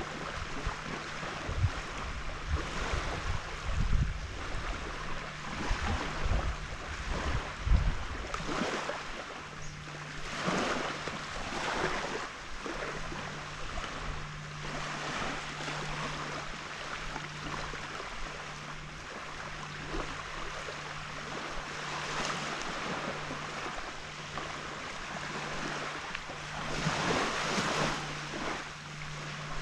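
Small waves washing onto a beach, the surf swelling and easing every few seconds, with wind rumbling on the microphone in the first several seconds and a steady low hum underneath.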